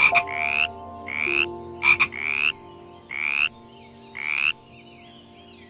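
American green tree frog calling: five short, nasal calls about one a second, with two sharp clicks among them, over a faint steady drone. The calling stops about three-quarters of the way through.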